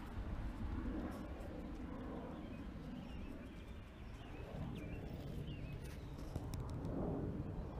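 Muffled low rumble of air buffeting the camera's microphone, with a few faint bird chirps in the middle.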